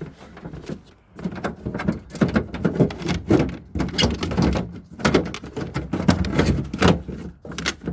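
Irregular clicks, knocks and scraping of a car door latch assembly being unclipped and worked loose from inside the door shell.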